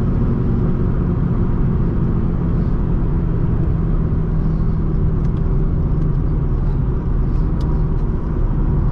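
Lexus IS350's 2GR-FSE V6, fitted with an aftermarket midpipe and axle-back exhaust, running at a steady engine speed while the car is driven, with a constant low rumble of engine and road noise.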